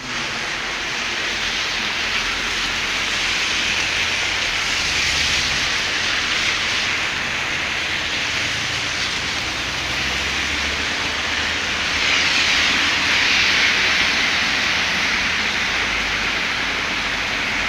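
Heavy rain falling, a steady loud hiss that swells a little about twelve seconds in.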